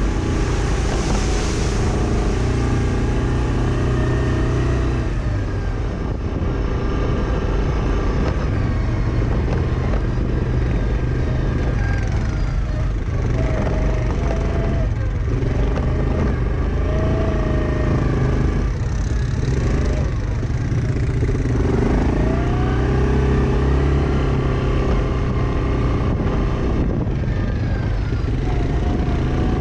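ATV engine running under way, its pitch rising and falling several times as the throttle is opened and eased off.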